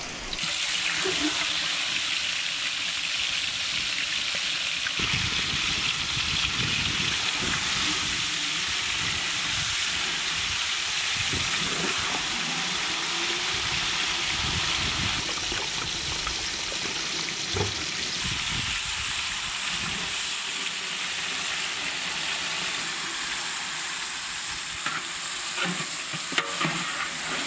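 Hot oil sizzling steadily in a large pot as a whole marinated goat fries in it with whole spices and sliced green chillies. The sizzle starts suddenly as the meat goes into the oil.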